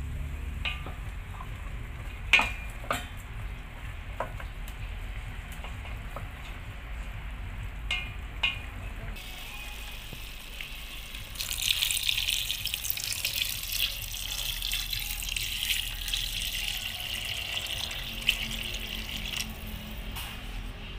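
A few knocks of a utensil against a steel cooking pot of chicken pieces. About halfway in, a loud hissing rush starts as water is poured into the pot, and it stops shortly before the end.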